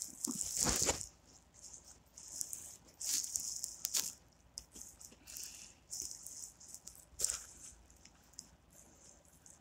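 Faint, irregular rustling and hissing noise, with the loudest rustle in the first second and shorter ones scattered after it.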